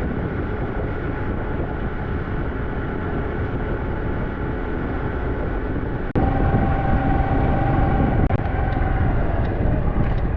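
Small 125cc-class motorcycle on the move: engine running under wind and road noise. About six seconds in there is a sudden cut to a louder stretch with a steady whining tone.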